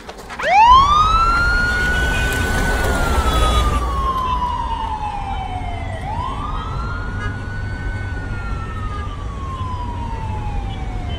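Police vehicle siren wailing. About half a second in it rises quickly, holds, then slowly falls over several seconds, and the cycle repeats roughly every six seconds over a low rumble.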